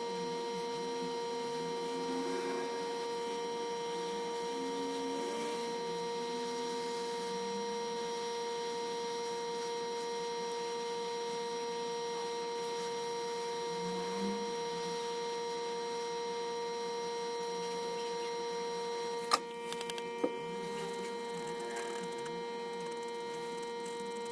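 Steady electrical hum with a higher whine over it, broken by a sharp click about nineteen seconds in and a few smaller clicks just after.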